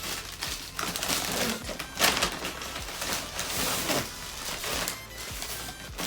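Plastic packaging and clothing crinkling and rustling as they are handled, in irregular bursts, loudest about two seconds in.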